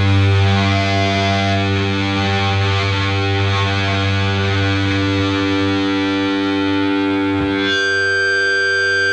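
Crust punk song ending on a sustained, heavily distorted electric guitar chord with no drums. Near the end the guitar stops and a steady synthesizer tone holds on.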